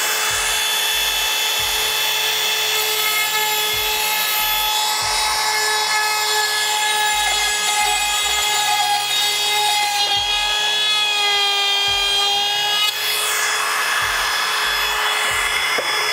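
Milwaukee cordless compact router running at full speed as its bit cuts a slot through crown moulding, a steady high motor whine. The pitch wavers and dips for a few seconds past the middle as the bit works the cut.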